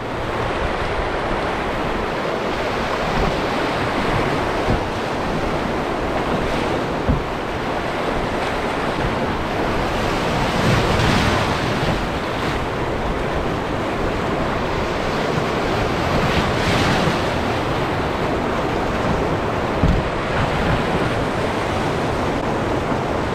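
Rushing white water of a class 3 rapid breaking around an open canoe's bow, with waves splashing against the hull. The splashing swells twice, about halfway through and again a few seconds later.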